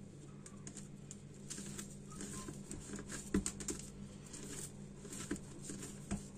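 Hands kneading a stiff flour-and-egg dough on a countertop: soft, irregular pats, presses and small squishes, a couple of them a little louder, over a steady low hum.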